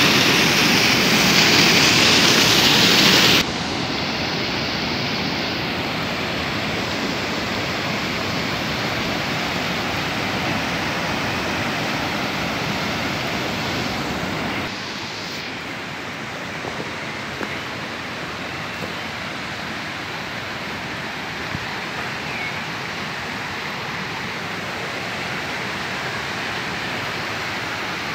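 Rushing water of a fast stream tumbling over rocks, a steady hiss. It drops abruptly in level about three seconds in and again about halfway through, then stays softer.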